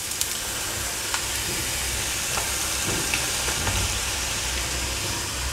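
Chopped bitter gourd sizzling as it drops into hot coconut oil for deep frying: a steady hiss with a few faint pops.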